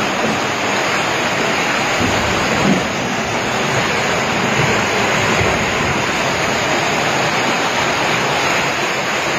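Floodwater rushing into and across a flooded room: a loud, steady rushing noise with no letup.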